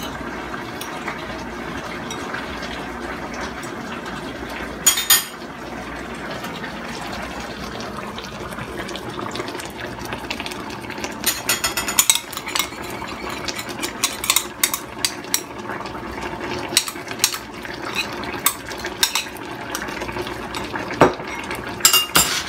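Metal spoon clinking against a small glass bowl as sauce is stirred, in quick runs of clinks, over the steady sound of a fish stew simmering in the pan.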